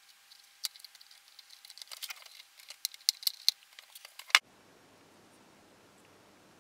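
Irregular small sharp ticks and crackles from a soldering iron working old solder joints on a circuit board, the loudest click about four seconds in. The ticking then stops abruptly, leaving only a faint steady hiss.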